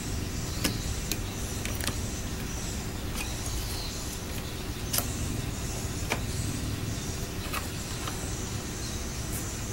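Steady low background hum with a few short, light clicks and taps scattered through it, from multimeter test probes and their leads being handled against a laptop motherboard.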